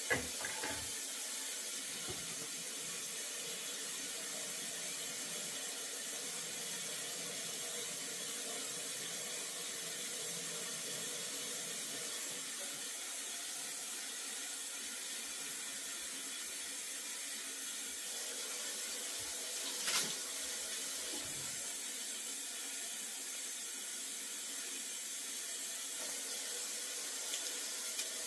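Kitchen faucet running steadily, drawing hot water for mopping the floor, with a sharp knock near the start and another about twenty seconds in.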